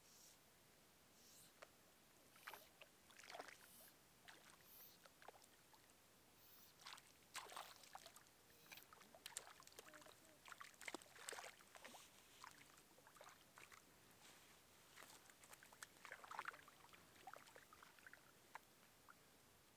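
Near silence, with faint, scattered small clicks and rustles.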